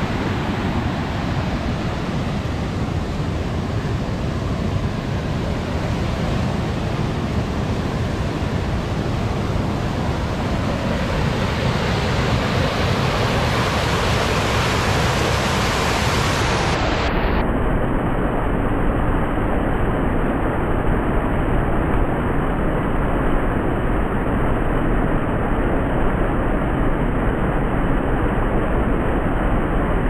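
Small waterfall: water rushing and churning steadily over rock ledges. About halfway through the rush turns duller, losing its hiss.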